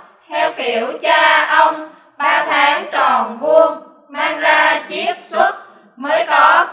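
Female voices chanting a Vietnamese vè, a rhythmic folk verse, in short sung lines of about two seconds each with brief breaks between them.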